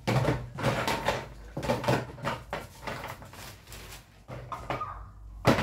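Plastic toys and small odds and ends clattering and a plastic bag rustling as they are sorted by hand, in a string of irregular knocks and rattles. One sharp knock, the loudest, comes near the end.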